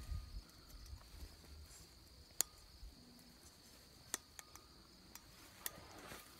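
Faint steady chirring of crickets, broken by a few sharp clicks, the strongest about two and a half seconds in, as high-tensile fence wire and a crimping tool are handled.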